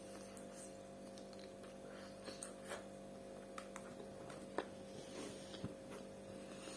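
Steady electrical hum with a dozen faint, scattered clicks and taps, the sharpest about four and a half seconds in.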